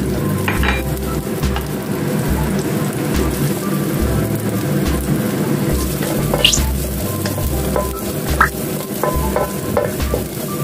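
Dried anchovies sizzling steadily as they fry in oil in a non-stick wok, with a wooden spatula scraping and turning them a few times.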